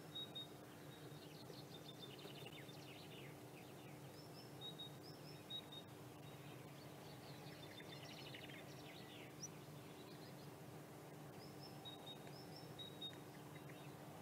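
Faint songbird song: short high whistled notes alternating with scratchy, rattling phrases, repeating every few seconds, over a steady low hum.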